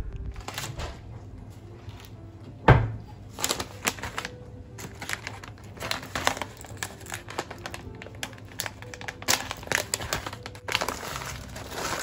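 Plastic stand-up pouch of loose tea crinkling and rustling in irregular bursts as it is handled and opened, with one thump about three seconds in, over soft background music.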